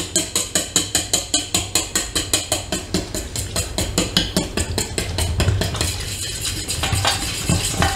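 A metal utensil beating batter in a stainless steel bowl: quick, even clinks of metal on metal, about four or five a second, turning into a softer, steadier stirring sound about five seconds in.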